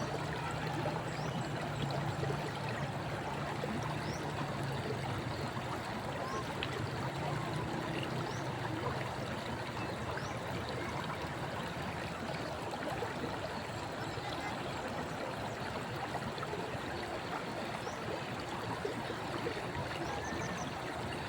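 River water running steadily, an even rushing wash, with a low hum in the first half and faint short high chirps now and then.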